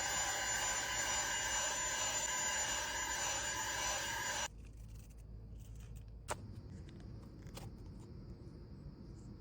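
Portable handheld vacuum running with a steady whine, then switched off about halfway through, cutting out suddenly. Two sharp clicks follow a couple of seconds later.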